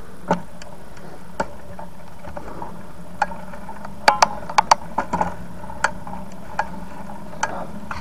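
A bicycle being ridden on a road: irregular sharp clicks and ticks over a steady running hum. The clicks come thickest about halfway through.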